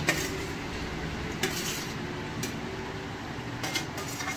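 A metal spoon scraping and clinking against a steel plate a few times as boiled macaroni is pushed off it into a frying pan, over a steady low hum.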